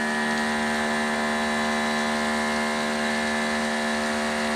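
Greenworks Pro 2700 psi electric pressure washer, driven by a brushless induction motor, running steadily under load with the trigger held and water spraying. It gives an even motor hum with a hiss over it.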